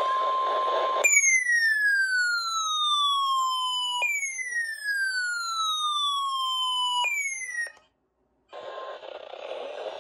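Electronic emergency alert tone: a siren-like sweep falling in pitch, sounded twice for about three seconds each and a third time cut short. Before it, about the first second, a steady tone plays over radio hiss; the hiss comes back near the end.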